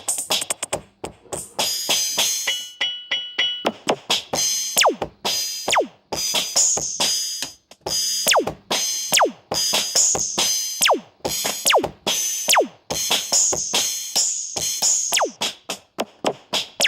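Electronic beat played on a drum machine: a busy run of drum hits, many of them dropping quickly in pitch, with a short held synth chord about two to three seconds in.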